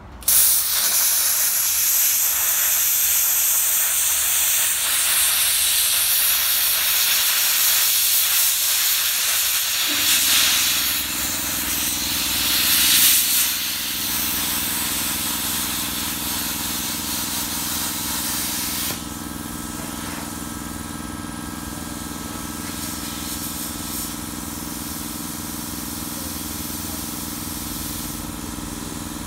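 Redbo ExpertCut 60 plasma cutter cutting: a loud, steady hiss of the arc and air jet that starts suddenly and drops off about nineteen seconds in. About ten seconds in, a machine starts running with a steady hum and keeps going after the hiss stops.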